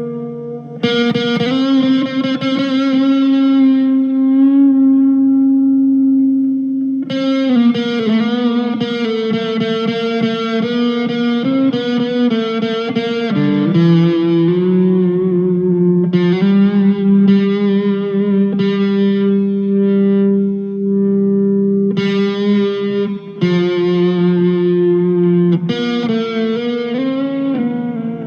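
PRS 245 electric guitar played through a Blackstar ID:Core V2 amp with a driven, effects-coloured tone. Chords are strummed and left to ring, with a change of chord about halfway through and fresh strums every few seconds.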